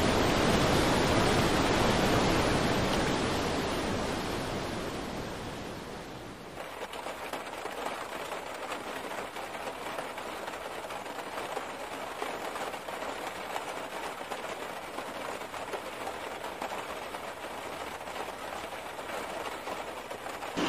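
Floodwater torrent rushing: a loud, steady rush of water that fades over the first six seconds. After a cut, a quieter, thinner hiss of flowing floodwater continues steadily.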